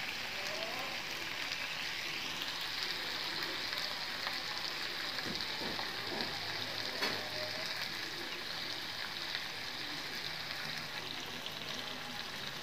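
Chicken leg pieces shallow-frying in ghee in a nonstick frying pan: a steady, even sizzle, with a few light taps about halfway through.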